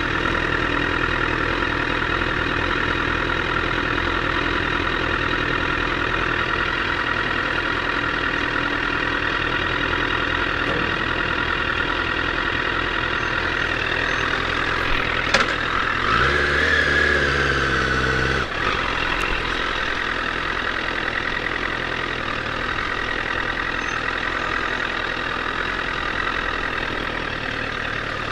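A 2008 Honda CBR1000RR's inline-four engine running steadily. About halfway through there is a sharp click, then a louder, deeper engine sound for about two seconds that cuts off suddenly.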